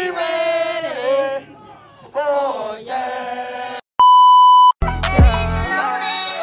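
Raised voices calling out for about four seconds. Then a steady, high TV test-tone beep of under a second, which cuts off abruptly. Music then starts with a quick downward sweep.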